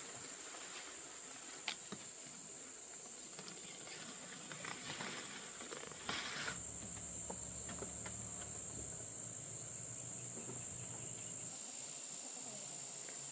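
Insects chirring in one steady high-pitched drone, with scattered light clicks and a brief rustle about six seconds in.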